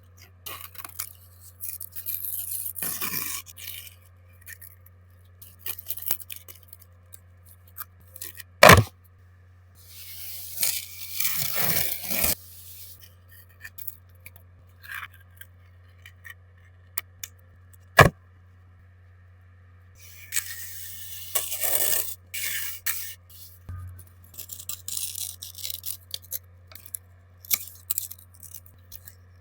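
Coloured sand being sprinkled and rubbed across a sand-painting board, in bursts of scraping and rustling with quiet gaps between. Two sharp knocks come about nine and eighteen seconds in, over a steady low hum.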